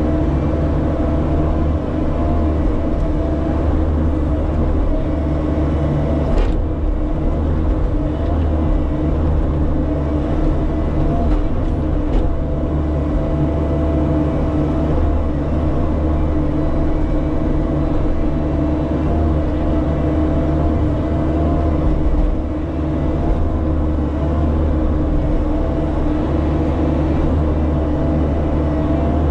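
Bobcat E50 mini excavator's diesel engine running steadily under load from the operator's seat while the boom and bucket dig dirt out of a trench. A single sharp knock comes about six seconds in.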